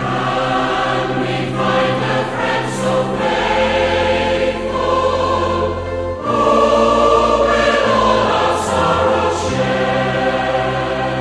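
A hymn sung by a choir with sustained notes over a steady low accompaniment.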